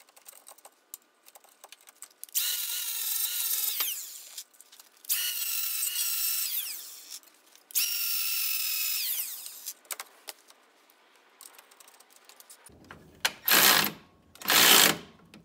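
Cordless angle grinder with an abrasive disc buffing corrosion off a steel mount, run in three bursts of a second or two, each winding down with a falling whine. Near the end a cordless ratchet runs twice briefly, driving the bolt back in.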